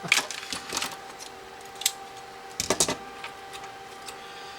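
A few light clicks and scrapes of small parts and tools being handled on a workbench while an opened iPod is worked on. A faint steady hum runs underneath.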